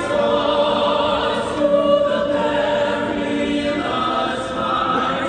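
Singing voices holding long, wavering notes with no beat or bass beneath them, the notes changing about every second or two.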